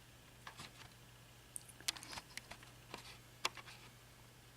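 Faint scattered light clicks of small metal lock parts and tools being handled, the pins of a disassembled Schlage pin-tumbler lock, over a low steady hum.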